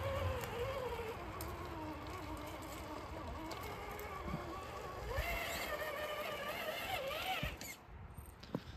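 Traxxas TRX-4 RC crawler's electric motor and geared drivetrain whining as it crawls over rocks. The pitch wanders up and down with the throttle, climbs again about five seconds in, then dies away near the end.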